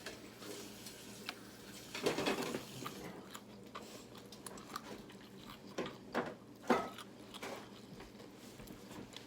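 Chewing and biting into fried chicken, with a few short crisp crunches and mouth smacks. The loudest come about two seconds in and again around six to seven seconds.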